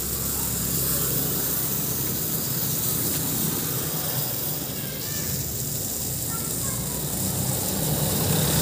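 Burning smoke paste hissing steadily as it pours out thick white smoke, over a low engine hum that grows louder near the end as a motorcycle passes.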